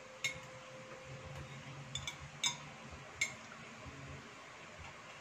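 Metal fork and spoon clinking against ceramic plates and bowls while eating: several light, short clinks with a brief ring, spread over a few seconds.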